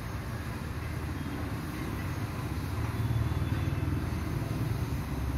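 A motor vehicle engine running with a low rumble, growing louder a little past the middle.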